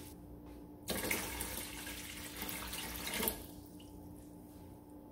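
Cold water poured from a plastic measuring jug into a stainless steel steamer pot, splashing and gurgling; the pour stops about three seconds in.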